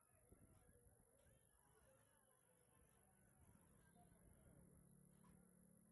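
A single steady, very high-pitched electronic tone, one pure pitch that does not change.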